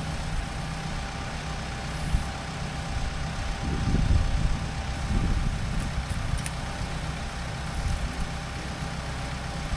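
Compact wheel loader's diesel engine idling steadily, its low hum swelling slightly about four and five seconds in.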